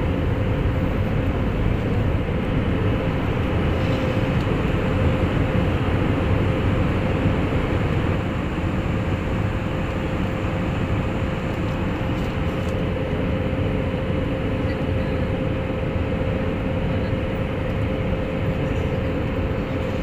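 Steady cabin noise of a jet airliner in flight: the even rush of its turbofan engines and airflow, heard from inside the cabin, with a steady hum held under it.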